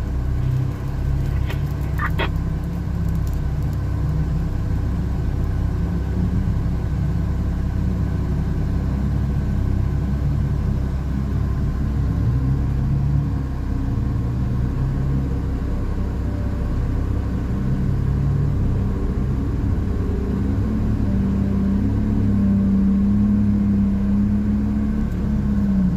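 An engine running steadily with a low rumble, its pitch shifting up and down, with a few light clicks in the first couple of seconds. About twenty seconds in, a steadier, higher hum comes in.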